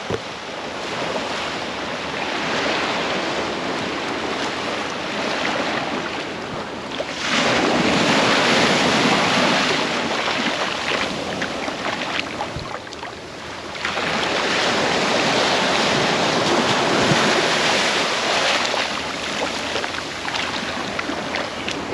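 Gulf surf breaking and washing up the beach, a steady rush that swells into two long, loud surges partway through.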